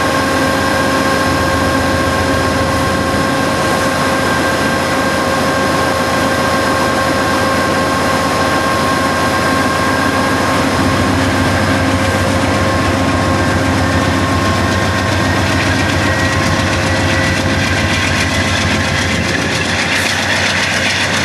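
P40BH diesel locomotive's V16 engine running with a steady high whine. About halfway through the engine note rises as it pulls its train away, and a rising whine joins near the end as it picks up speed.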